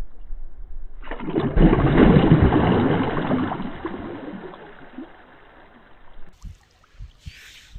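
A large hooked carp thrashing and splashing at the surface of shallow water. The splashing starts about a second in, is loudest over the next two seconds, then dies away.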